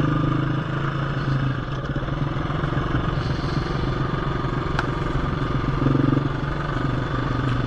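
KTM 350 EXC-F dirt bike's single-cylinder four-stroke engine running steadily on light throttle, with a short burst of throttle about six seconds in.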